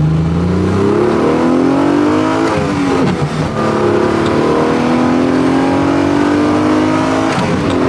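Alfa Romeo GTV6's modified 3.0-litre Busso V6 under hard acceleration, its pitch rising with the revs, dropping at an upshift about two and a half seconds in, then climbing again before another shift near the end.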